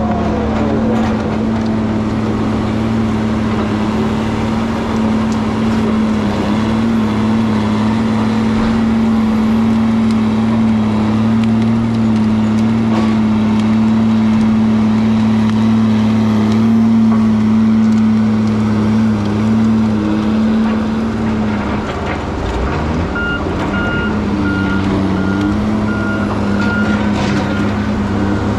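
Heavy logging machine's engine running steadily under load. The engine eases off and changes pitch about three-quarters of the way through, and a backup alarm then beeps in an even on-off rhythm near the end.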